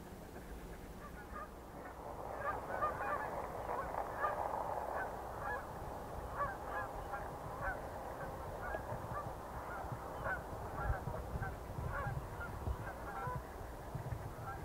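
A flock of geese flying over and honking: many short calls overlapping, starting about two seconds in.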